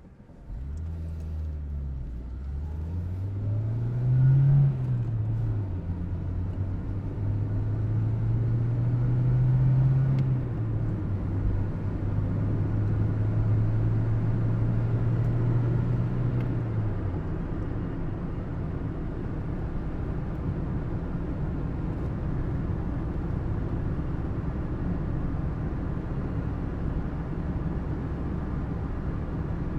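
Car engine running under way: its low note climbs, drops back about four seconds in, climbs again and drops about ten seconds in, holds steady, then fades into a steady low rumble.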